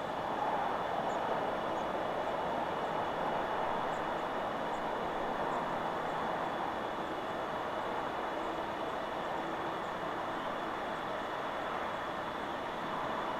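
Wind rushing steadily through forest trees, swelling slightly about half a second in, with faint high bird chirps now and then.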